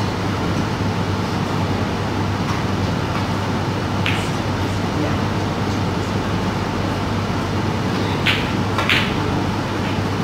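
A snooker shot: two sharp clicks about half a second apart near the end, the cue tip striking the cue ball and the cue ball hitting the blue, which is potted. A steady hum runs underneath.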